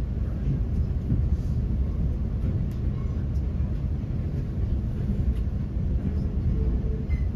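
Inside a Class 350 Desiro electric multiple unit on the move: a steady low rumble of the wheels on the rails, with a few faint clicks.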